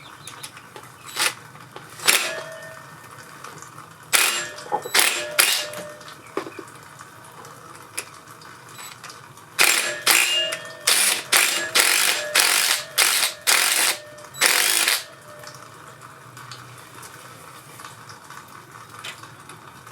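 Metal hand tools working a tight bolt on a 1985 Honda VT700C engine's shift drum cam plate: short, sharp metallic rasps and clicks, a few near the start and around four to five seconds in, then a quick run of them from about ten to fifteen seconds, with a faint metallic ring in some.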